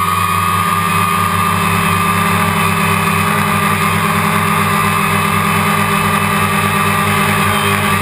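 DJI Phantom quadcopter's electric motors and propellers in flight, a loud steady hum heard from on board through a GoPro's waterproof housing.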